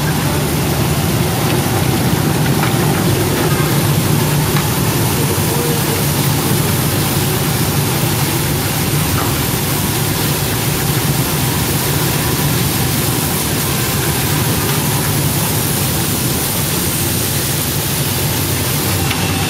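CA-3000 bubble vegetable washer running with onions in its tank: a steady motor hum under the even rush of pumped air bubbling and churning the water.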